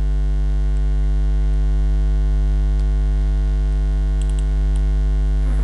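Steady electrical mains hum, loud and unchanging, picked up by the recording. A few faint clicks come about four seconds in.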